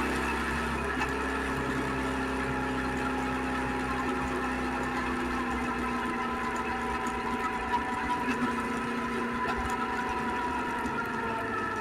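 Suzuki SV650X's 645 cc V-twin engine running steadily, its pitch easing down slowly.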